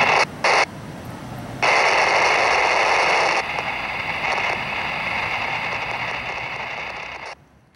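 Two-way radio static: a loud hiss that cuts in and out abruptly several times with no voice on it, and stops suddenly near the end.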